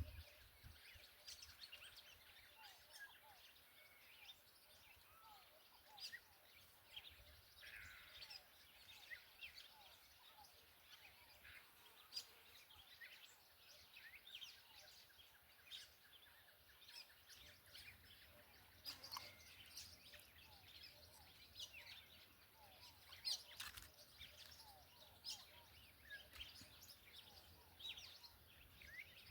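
Faint outdoor ambience with many short, high chirps and calls scattered through it, with a few slightly louder ones around 12, 19 and 23 seconds in.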